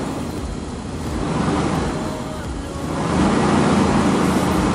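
Dodge Ram's 5.9 Magnum V8 running with its revs swelling and easing every couple of seconds as the throttle linkage is worked by hand, keeping the engine alive while Seafoam is poured into the throttle body.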